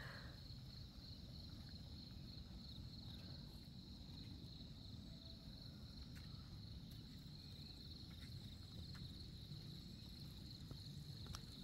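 Faint, steady chorus of insects on one high continuous pitch, over a low outdoor rumble, with a few faint ticks.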